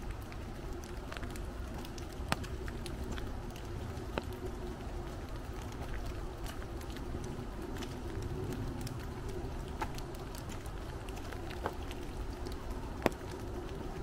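Light rain in woodland: a steady soft patter with a low rumble underneath, and now and then a single heavier drop hitting the umbrella overhead with a sharp tap, the loudest about a second before the end.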